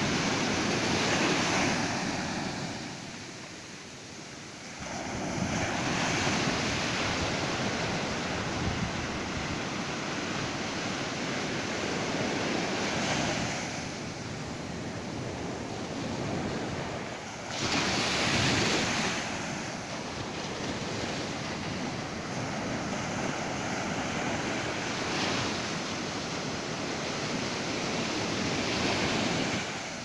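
Ocean surf breaking on a sandy beach, waves washing in and drawing back. The rush swells and fades every five or so seconds, with one louder surge about two-thirds of the way through.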